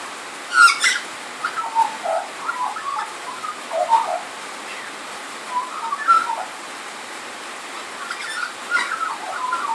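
Australian magpie singing a rambling run of short, varied warbled and gliding notes, with sharp high notes about half a second in and again near the end. A steady hiss of rain on a tin carport roof runs underneath.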